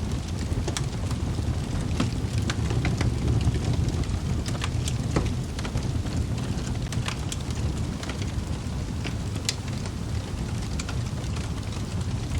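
Wood fire burning in a fireplace: a steady low rumble of flames with irregular sharp crackles and pops from the logs.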